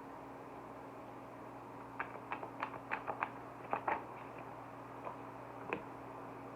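Tarot cards being handled: a quick scatter of light clicks and snaps about two seconds in, then two more single clicks, over a steady low hum.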